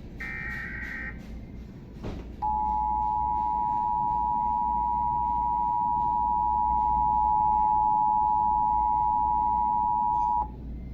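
Emergency Alert System tones for a Required Monthly Test. It opens with the last burst of the SAME digital header, a buzzy warbling data burst about a second long. After a short gap comes the two-tone EAS attention signal, a steady piercing dual tone that holds for about eight seconds and cuts off abruptly.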